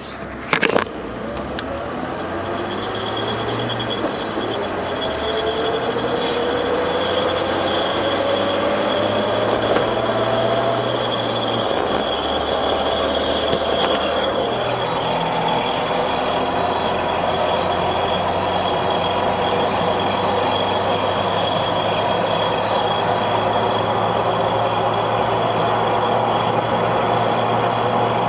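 Jeep running with a steady high-pitched whine over its engine and drivetrain sound. The lower tones rise in pitch for the first ten seconds or so, then drop about halfway through. This is the annoying noise whose source the owner cannot find.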